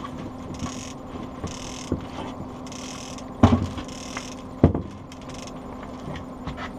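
Outboard motor running steadily at trolling speed, with knocks on the aluminium boat: a lighter one early on, then two loud ones about a second apart midway.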